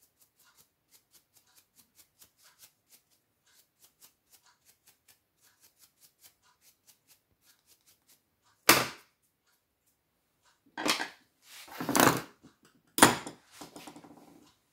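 Faint, even ticking about three times a second for most of the first eight seconds, then four loud clacks and clatters of hand tools being put down on a steel workbench, the last with a short rattle after it.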